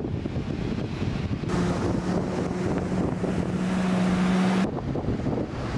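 Wind buffeting the microphone with a low, gusty rumble. About a second and a half in, a steady machine hum with a hiss comes in, then cuts off abruptly near the end.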